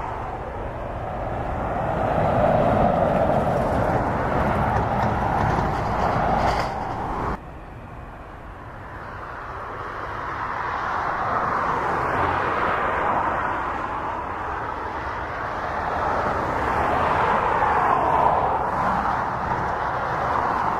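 Jet airliner engines at taxi power: a steady jet whine over a rumble, swelling and fading as the aircraft rolls past. The sound cuts off suddenly about seven seconds in, then a second taxiing airliner's engine noise builds back up.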